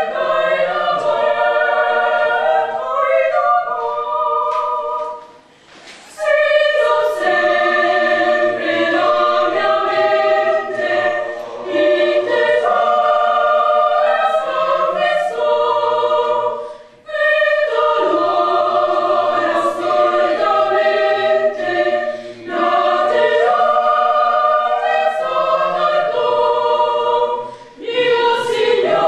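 A choir singing a slow hymn in several-part harmony, unaccompanied, in long phrases with short breaks for breath between them.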